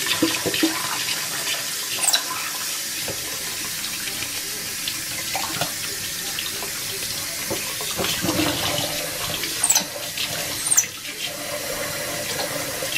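Kitchen faucet running steadily, its stream splashing onto a wet capuchin monkey and into a stainless steel sink. A few brief sharp sounds stand out over the steady water.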